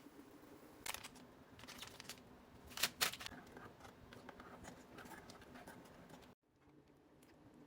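Quiet kitchen handling sounds: a few sharp clicks and rustles, the loudest about a second and three seconds in, then softer scattered ticks. The sound cuts out briefly near the end.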